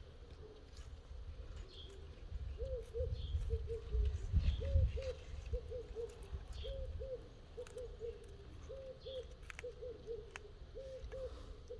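A bird calling a repeated run of low, short hooting notes, in alternating groups of two and three, about one group a second. A low rumble rises briefly about four seconds in.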